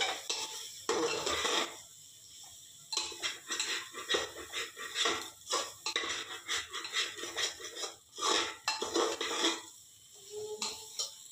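Steel spatula scraping and stirring a thick mixture of peas and potato against the aluminium walls and base of a pressure cooker, in repeated irregular strokes with brief pauses about two seconds in and again about eight seconds in.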